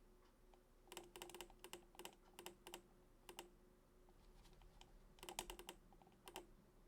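Faint typing on a computer keyboard: two runs of quick key clicks, the second starting about five seconds in.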